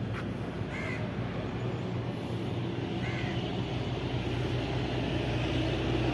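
Two short bird calls, about a second in and about three seconds in, over a steady low hum.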